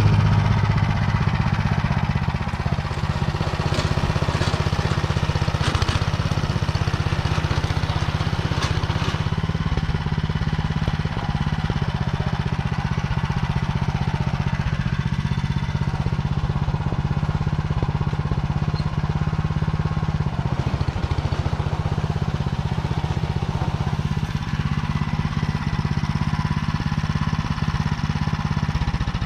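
Walk-behind tractor's small engine running steadily under load, driving a Motor Sich rotary tiller through hard, dry soil.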